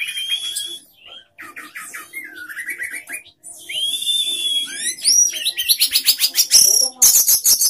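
Orange-headed thrush singing a loud, varied song: trains of fast repeated notes, clear whistles and rising glides, ending in a high rapid trill.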